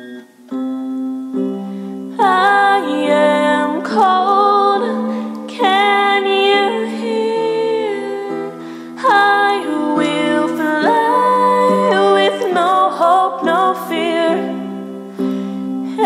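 A woman singing to her own piano accompaniment on an electronic keyboard. The piano plays chords alone at first, and the voice comes in about two seconds in, holding long notes that slide between pitches.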